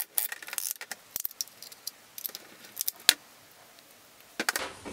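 Scattered metallic clicks and clinks of a band-type piston ring compressor being handled and fitted around a piston, with one sharper click about three seconds in.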